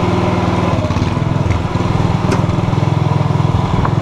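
Radio-controlled model excavator running its motor steadily under load, a pulsing mechanical drone, as its arm pushes into a model house. A few sharp knocks come through, about two seconds in and again near the end.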